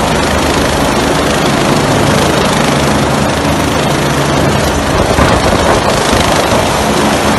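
Fire-service rescue helicopter hovering low, its rotor and turbine engine running loud and steady.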